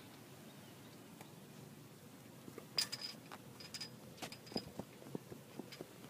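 Light, irregular metallic clinks and taps, like hand tools and engine parts being handled during a spark-plug change. They start after a quiet couple of seconds and come a few times a second, some with a short high ring.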